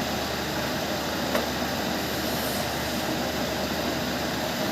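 Steady, even hiss and whir from a TIG400A TIG welding machine being tried out, with a single click about a second and a half in.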